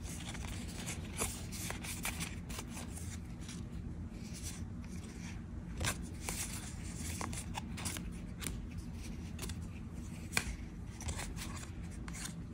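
Magic: The Gathering trading cards being slid one by one off a hand-held stack, with soft papery swishes and small clicks at irregular intervals.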